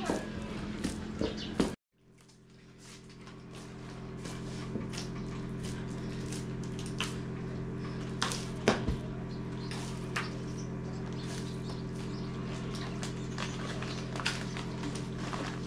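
Hands kneading a large mass of tiri flatbread dough in a metal basin: irregular soft squishes and a few sharper knocks, the strongest about eight seconds in, over a steady low hum. The sound cuts out briefly near two seconds in and fades back up.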